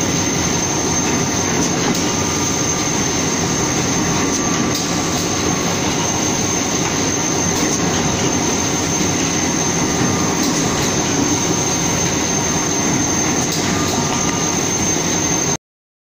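Roller-fed plywood processing machine and its electric motor running steadily and loudly, with a constant high whine over a rumbling clatter, as sheets pass through; the sound cuts off suddenly near the end.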